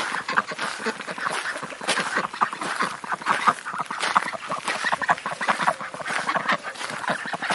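A flock of domestic ducks quacking, with many short quacks overlapping in a continuous chatter.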